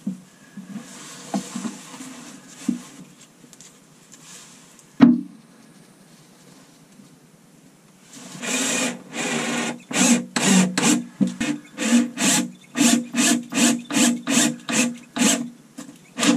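Putty knife scraping and stirring epoxy with a white filler in a plastic tub, with one sharp knock about five seconds in. From about eight seconds on, a run of rhythmic scraping strokes, about two a second.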